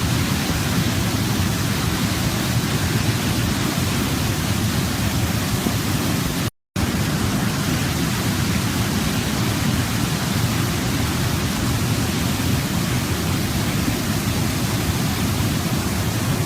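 Waterfall: a steady, heavy rush of falling water. It cuts out completely for a moment about six and a half seconds in, then resumes unchanged.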